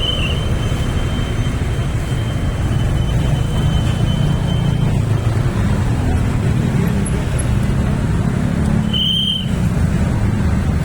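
Road traffic noise: a steady low rumble of passing vehicle engines. A thin, steady high whine runs through the first few seconds, and a short high squeal comes about nine seconds in.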